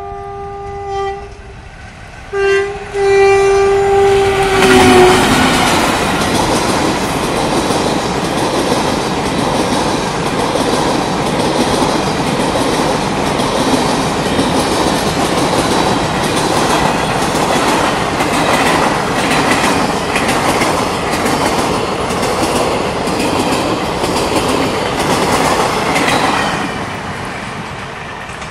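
WAM-4 electric locomotive's horn sounding three times: a blast, a short blast, then a long blast that drops in pitch as the locomotive passes. Then the express train's coaches roll past with a loud, steady rumble and rhythmic wheel clatter over the rail joints, fading near the end.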